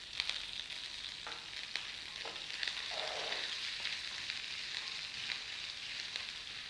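Hot oil sizzling and crackling with quick spits as fresh curry leaves fry in a tempering of mustard seeds, cumin, green chilli and ginger in a nonstick pan. A wooden spatula stirs through it, with a few soft knocks against the pan.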